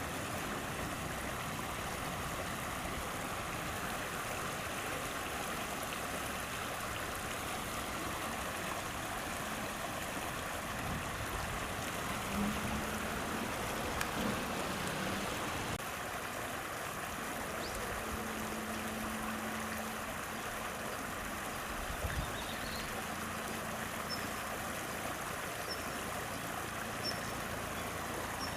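River water flowing steadily, an even rushing hiss. A faint low hum comes and goes twice in the middle, and a few faint high chirps sound near the end.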